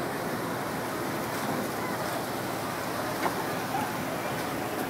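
Steady rushing waterfront background noise, wind on the microphone mixed with water, with faint distant voices and a single short knock a little past three seconds in.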